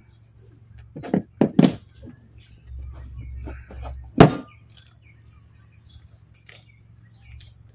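Handling knocks and rubs from a speargun being rigged by hand with cord and rubber bands. A few quick knocks come a little after a second in, then a low rubbing rumble, then one sharp knock about four seconds in, the loudest of them.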